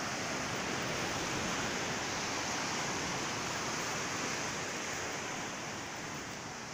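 Surf breaking and washing up a sandy beach: a steady rushing noise, a little stronger in the first half.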